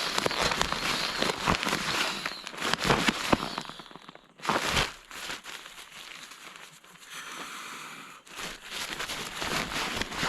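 Crinkling and crackling of a nylon pump sack being rolled down to force air into an inflatable sleeping pad. A brief louder burst of noise comes about four and a half seconds in.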